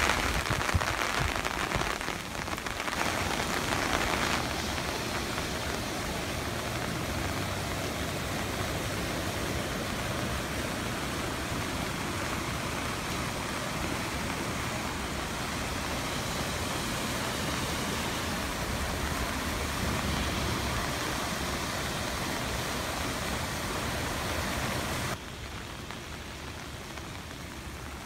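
Steady rain falling on grass and standing floodwater, louder for the first few seconds and dropping suddenly in level near the end.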